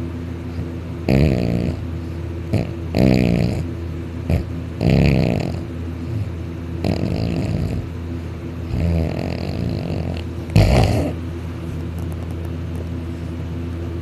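A man snoring loudly through an open mouth while lying on his back, a rough snore about every two seconds. The last and loudest one is short and sharp, about eleven seconds in. A steady low hum runs underneath.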